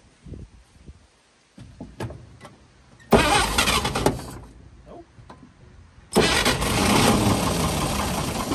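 A 1953 GMC one-ton truck's inline-six engine, long left sitting, turning over on the starter and firing on ether in two loud bursts, about three seconds in and again about six seconds in. It catches only briefly and dies, not keeping running on starting fluid alone.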